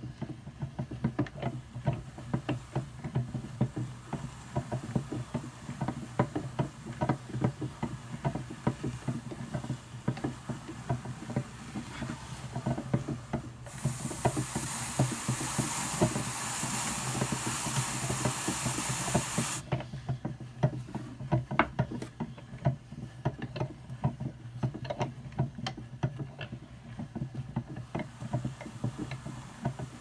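Hand-cranked Brother Standard drum carder turning with fine carding cloth, wool feeding through its drums with a rapid, uneven ticking and rubbing. Near the middle, a stiff bristle brush held against the turning large drum adds a steady hiss for about six seconds, then stops sharply; the brush is packing the fibre down into the carding cloth.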